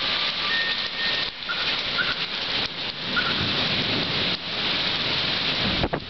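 Heavy thunderstorm rain pouring down: a dense, steady hiss that dips briefly a few times.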